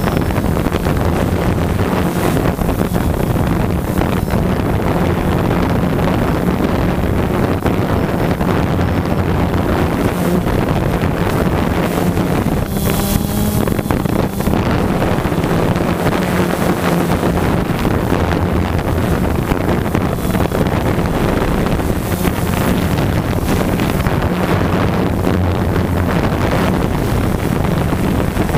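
DJI Phantom 2 quadcopter's four electric motors and propellers humming steadily, heard from the GoPro slung beneath it, with heavy prop-wash wind noise on the microphone. The hum drifts slightly in pitch as the motors change speed, with a short louder rush about halfway through.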